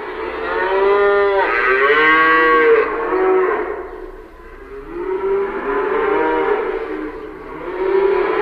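Cows mooing: a run of long pitched moos that bend up and down, overlapping and loudest in the first three seconds, with a lull around four seconds in before more moos follow.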